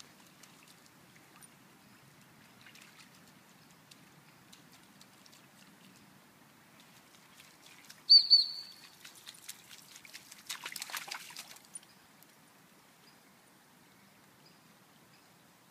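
A dog training whistle blown in a few quick high pips, the recall signal for a cocker spaniel carrying a retrieve dummy. Soon after, about a second and a half of splashing as the dog runs through shallow stream water.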